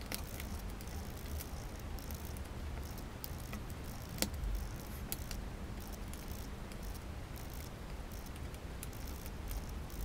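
Small plastic clicks and rattles of a dot-matrix printer ribbon cassette being handled and snapped back together, scattered and irregular, the loudest click about four seconds in, over a steady low hum.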